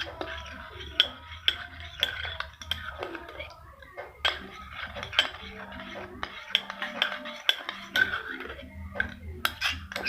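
A metal spoon clinking and tapping against a cup, in irregular clicks a few times a second, as when a drink is stirred or spooned out.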